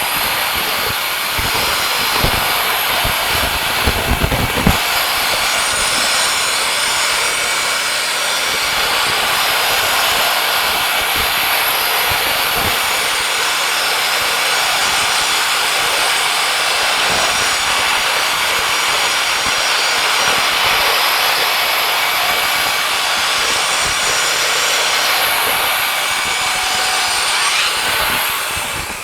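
Wood-Mizer LT40 band sawmill cutting a pine log: the engine running under load with the band blade making a steady rushing noise through the wood, which drops off near the end.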